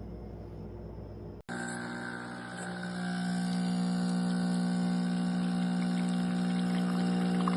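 Espresso machine's pump buzzing steadily while brewing, starting after a sudden cut about a second and a half in and growing louder about a second later.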